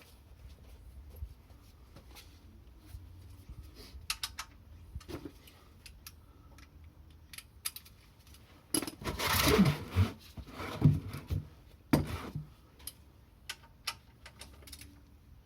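Metal tools and parts clinking and knocking as they are handled. There is a louder scraping, rustling stretch with a few thumps about nine seconds in, and a sharp knock a little after.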